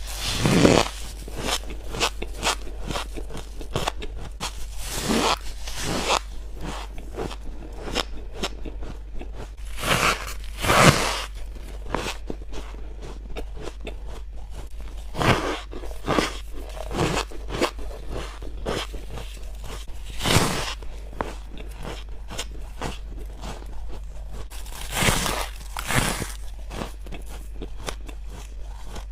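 A person biting into and chewing squeaky white freezer frost: a steady run of crisp crunches close to the mouth, broken by about seven louder bites. A faint steady low hum runs underneath.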